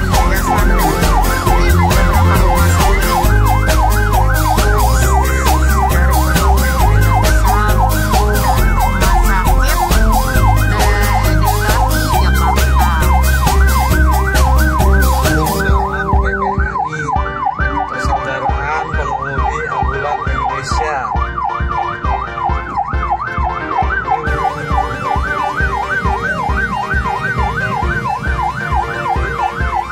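Several ambulance sirens sounding together in a fast, rising-and-falling yelp, over music with a heavy bass beat. About halfway through the music thins out and the sirens carry on.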